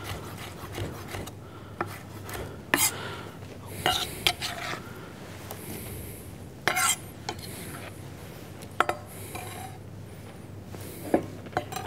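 Kitchen knife knocking and scraping on a wooden cutting board as vegetables are diced, with a metal spoon clinking in a glass mixing bowl. The knocks come singly and at irregular spacing, not as a steady chopping rhythm.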